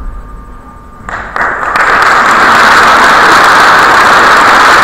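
Audience applauding: after a quiet first second, clapping starts and quickly builds to loud, steady applause.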